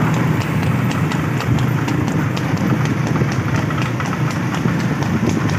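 A racing horse's hooves clip-clopping at a fast, regular trot, about three hoofbeats a second, over a steady low rumble.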